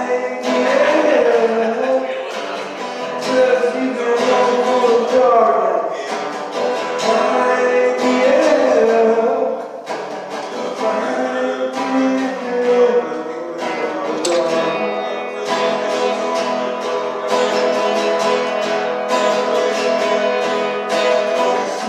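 Acoustic guitar strummed with a voice singing over it, a live solo acoustic song.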